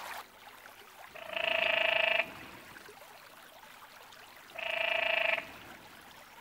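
Male canyon tree frog giving its courtship call: two calls about a second long each, the second about three seconds after the first.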